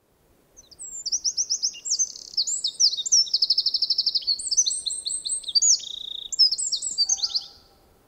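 Eurasian wren singing one long, high-pitched song of rapid trills and rattling note series, starting about half a second in and lasting about seven seconds.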